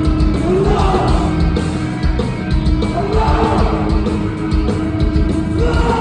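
Hardcore punk band playing live at full volume, with distorted guitars, pounding drums and shouted vocals in a large reverberant hall.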